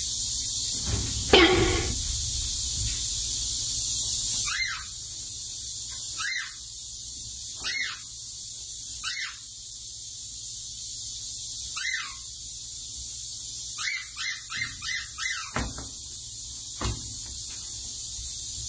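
Young macaques giving short high squeals, about ten, with a louder one about a second in and five in quick succession near the end, over a steady high hiss.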